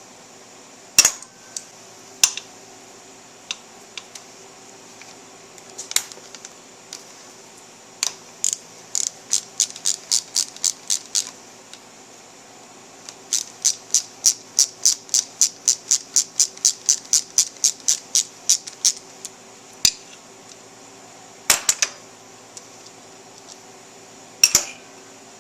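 Socket ratchet clicking as a bolt is backed out, in two long runs of short even clicks about four a second, with a few separate sharp metal clinks of tools between them.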